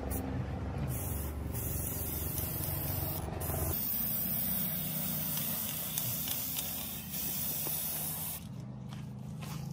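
Aerosol spray-paint can hissing as paint is sprayed onto a cement flower pot, in long bursts with brief breaks, easing off near the end.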